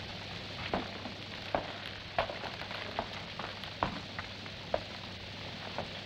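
Steady hiss and low hum of an old 1950s film soundtrack, with scattered clicks and crackles about once a second.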